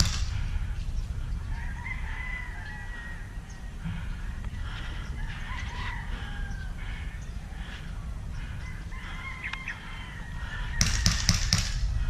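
Birds calling in wavering, bending tones over a steady low rumble. Near the end comes a quick string of sharp cracks from an airsoft gun firing.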